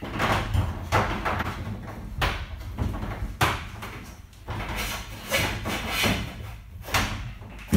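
Electrical cable being pulled and fed through the holes of a van's bare steel side panel: irregular scraping and knocking of the cable and hands against the sheet metal.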